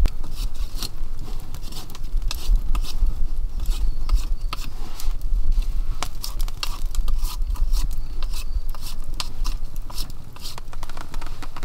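Wood fire crackling, with frequent irregular sharp pops and snaps over a steady low rumble.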